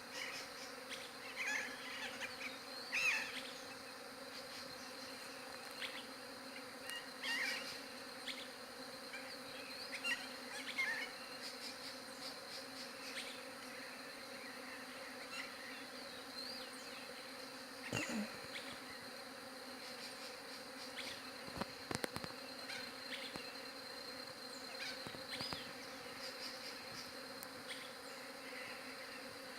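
Many bees buzzing together in a steady, even hum, with short chirps and a few faint clicks over it.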